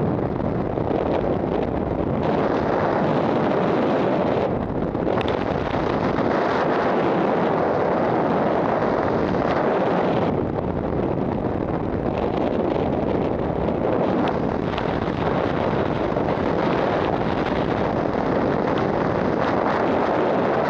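Freefall wind rushing over a skydiver's camera microphone: a steady, dense wind noise whose hiss eases briefly twice.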